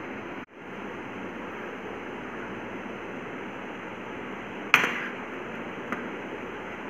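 A sharp knock followed about a second later by a lighter tap, from a small plastic container of flour being handled over a mixing bowl, over a steady background hiss.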